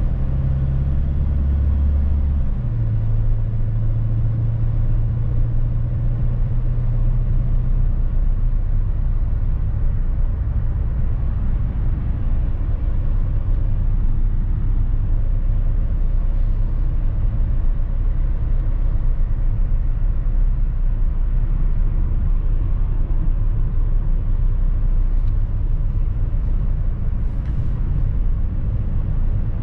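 Mercedes-Benz Sprinter van driving, heard from inside the cab: a steady low rumble of engine and tyres on the road. An engine hum steps up in pitch about two seconds in and fades into the road rumble about eight seconds in.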